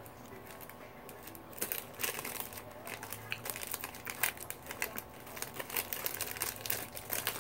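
Plastic snack-bar wrapper crinkling in the hands with irregular small crackles as a chunk is broken off a nut-and-honey bar.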